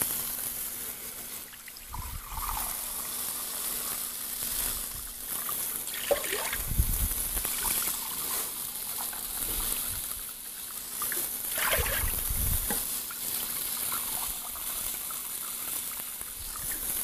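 Canned chicken stock being poured into a glass measuring cup, a steady trickle of liquid.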